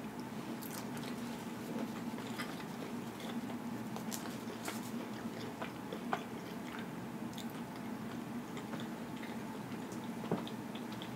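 A person chewing pizza close to the microphone: soft wet mouth clicks and smacks, with two sharper clicks about six and ten seconds in.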